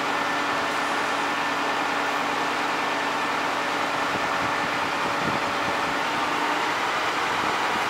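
Fire engine's turntable ladder truck running steadily, its engine driving the ladder's hydraulics, with a constant mechanical hum.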